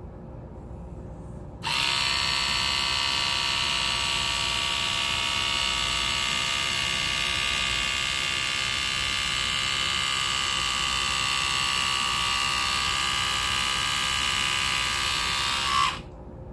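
Split Ender Pro 2 split-end trimmer's motor switching on about two seconds in and running with a steady high whine as it is drawn along a section of hair, then cutting off just before the end.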